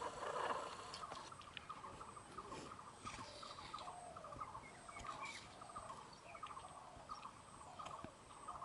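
Faint bird calls: many short chirping notes repeating at a quick pace, some of them sliding, with a few soft clicks between.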